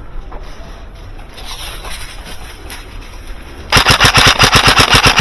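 Airsoft gun firing on full auto: a fast, even stream of sharp shots that starts about three-quarters of the way in, close and loud, after a stretch of low outdoor rumble.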